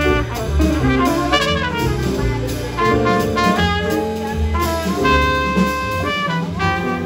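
Small jazz group playing live: a trumpet carries the line over grand piano, upright bass and drum kit.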